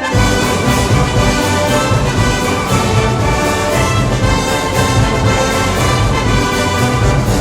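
A brass band playing Moros y Cristianos festival music, with brass carrying the tune over a steady drum beat.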